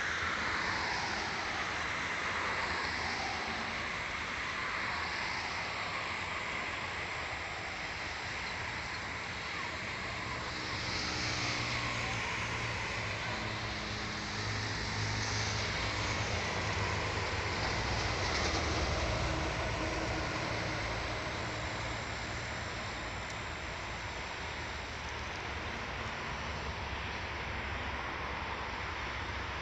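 Steady rumble and rattling of a moving passenger train heard from inside the carriage, with a hiss that swells and fades every couple of seconds.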